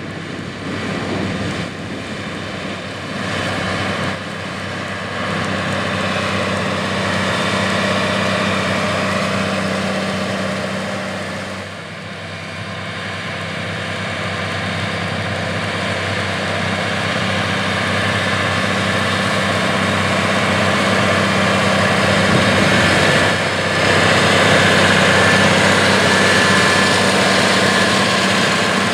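AGCO White 145 tractor's diesel engine running steadily under load while pulling a 12-row corn planter, a continuous engine drone that grows louder in the second half.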